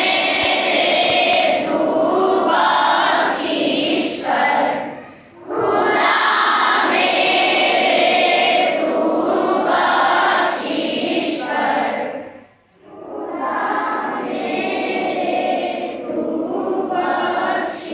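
A group of school children singing a prayer together in three long phrases, with short pauses for breath about five and twelve seconds in.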